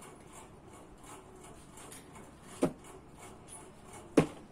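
Two hand slaps on the cardboard lids of closed shoeboxes, about a second and a half apart, the second one louder.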